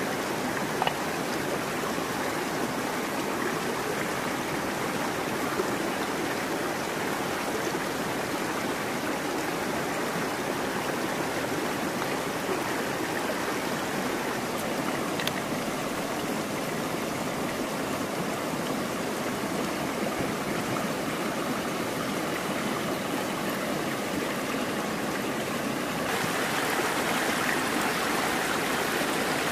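River water running over stones, a steady rushing that grows a little louder near the end. A short knock sounds about a second in and another around six seconds.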